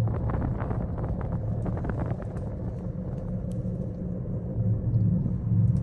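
Low, steady rumble of a gondola cabin riding down the cable, with a scatter of light clicks and rattles in the first two seconds or so.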